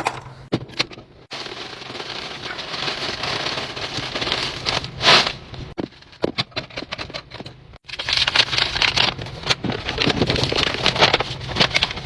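Plastic food packaging and containers being handled while a fridge is restocked: rustling and crinkling with many light clicks and knocks. The sound breaks off abruptly twice.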